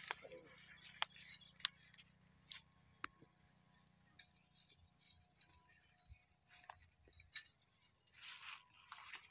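Dry leaves and stalks crackling and rustling as a spectacled cobra is moved through them: a few sharp crackles in the first three seconds, then a longer rustle near the end.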